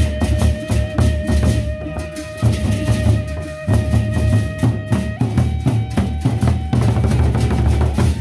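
Gendang beleq ensemble: large Sasak barrel drums beaten with sticks in a fast, dense interlocking rhythm, with bright cymbal strokes over them. A flute holds long notes above the drums, its pitch stepping up a little about five seconds in.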